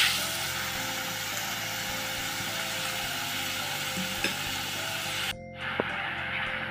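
Chopped onions and cumin seeds sizzling in hot oil in a pan while being stirred with a silicone spatula, with a couple of light spatula taps. The sizzle cuts out for a moment about five seconds in.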